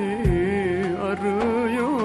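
Music: an ornamented melody with wavering, bending pitch over a sustained low note, with a low drum stroke about a quarter second in.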